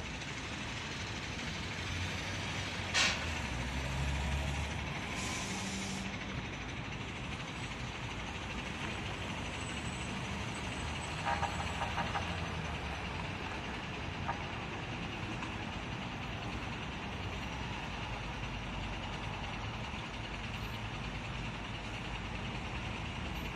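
Steady city street noise with vehicle engines running. There is a brief sharp hiss about three seconds in and a quick cluster of short ticks around the middle.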